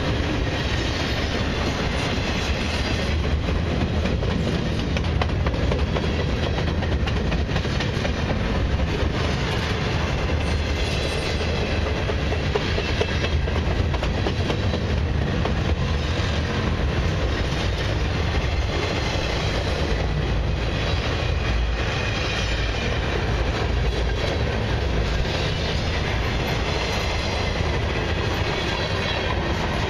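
Freight cars of a long Canadian Pacific train rolling steadily past, their wheels running over the rails in a continuous, even rumble.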